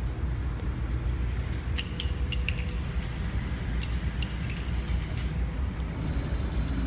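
Steady low hum of an indoor shooting range with a scattered handful of light metallic clicks and clinks.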